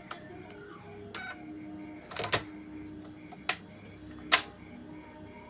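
Epson inkjet printer mechanism running through its power-on initialization as the print-head carriage shifts out of its home position. A low motor hum starts about a second in, and the gears and head lock give four sharp plastic clicks, the loudest about two and four seconds in.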